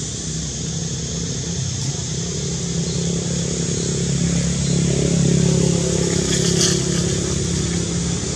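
A motor vehicle's engine running steadily, growing louder about five seconds in and then easing off a little, over a steady high hiss.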